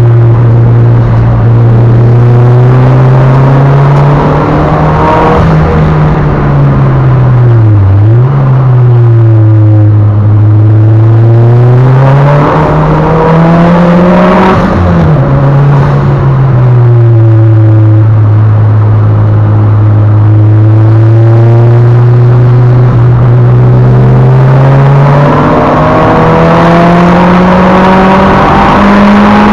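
Mitsubishi Lancer Evolution VIII's turbocharged 2.0-litre four-cylinder engine, heard from inside the cabin while lapping a circuit, with the revs rising and falling. It climbs for the first few seconds, dips sharply and recovers about 8 seconds in, climbs to a sudden drop about halfway through, holds steady for a long stretch, then climbs again near the end.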